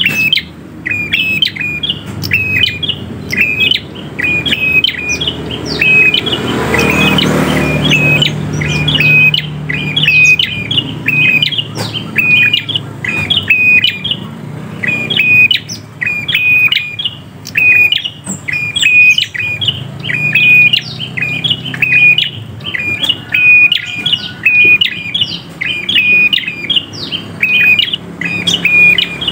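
Caged prinia singing vigorously: a short, sharp chirping call repeated over and over, several times every couple of seconds, without a break.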